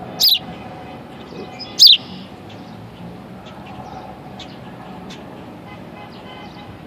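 A baby sparrow chirping: two loud, sharp peeps falling in pitch, about a second and a half apart, followed by a few fainter chirps.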